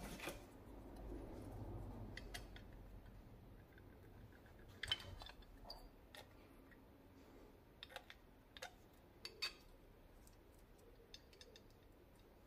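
Small parts of an Edelbrock 1406 carburetor being handled during reassembly: scattered light metal clicks and taps, the loudest about five seconds in, over near silence.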